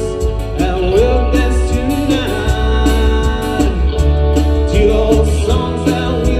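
Live band playing a song: a man singing over electric guitars, bass and a drum kit.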